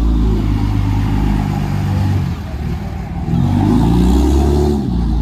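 Dodge Ram pickup truck's engine revving hard as it pulls away, easing off a little over two seconds in, then climbing in pitch as it pulls again before fading at the end.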